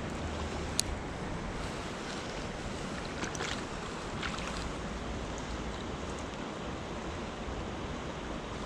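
Creek water rushing steadily, with a sharp click a little under a second in and a few faint ticks about three to four and a half seconds in.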